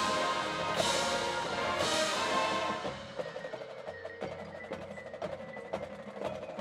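High school marching band playing: the full band with loud accented hits about once a second, then about three seconds in it drops away to a quieter passage of mallet percussion playing short struck notes.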